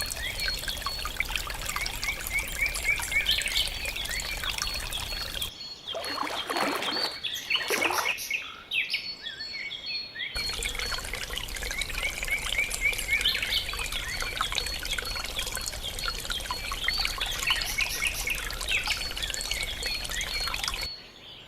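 Birds chirping over a steady trickle of running water. About six seconds in, the water noise drops away for a few seconds and a few longer falling calls are heard, then the birdsong and water resume.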